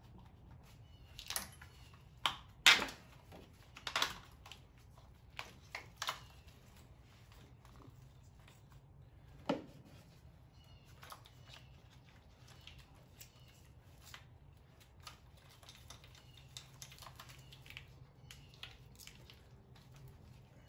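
Plastic engine-bay parts on a Jeep's 2.5L four-cylinder being unclipped and handled: a cluster of sharp clicks and snaps in the first six seconds, the loudest about three seconds in, then lighter scattered clicking.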